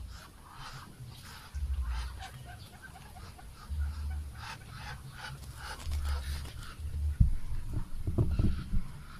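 Muscovy ducks bathing in a tub of water, splashing and shaking in bursts about every two seconds, with sharper, louder splashes near the end.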